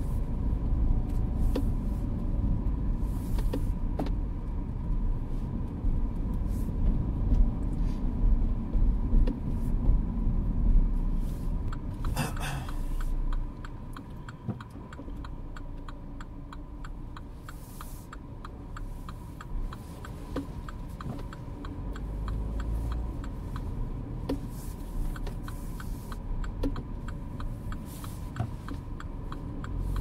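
Cabin sound of a Mini Clubman being driven: steady low engine and road rumble that eases off a little under halfway through as the car slows, then builds again near the end. A brief hissing scrape comes just before the drop, and an even, light ticking of about two a second runs through the quieter second half.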